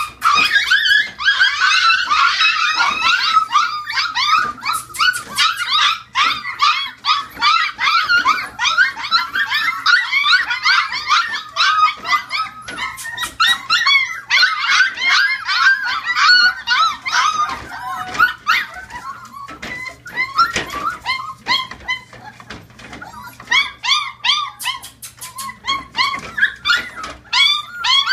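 A litter of Siberian husky puppies yipping and whining together, many short high-pitched cries overlapping into a constant chorus that thins out for a few seconds past the middle before picking up again, with a few sharp clicks now and then.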